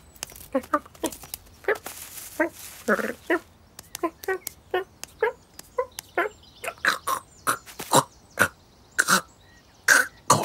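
A cartoon cat's vocal effects, made by a human voice: a quick run of short grunts, chirps and huffs, about two or three a second, turning sharper and louder in the second half as the cat plays.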